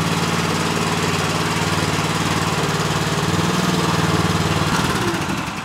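Skid steer's small Loncin engine running steadily under load while driving a chain trencher attachment, the trencher's digging chain spinning in the air. Near the end the engine note drops and the sound begins to die away.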